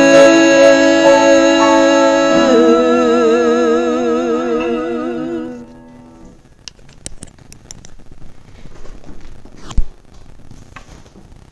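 Two women's voices hold the final sung note of a duet in harmony. The note goes into a wide vibrato about two and a half seconds in and ends about six seconds in. Then comes a quiet room with a few small clicks and one sharp thump near the end.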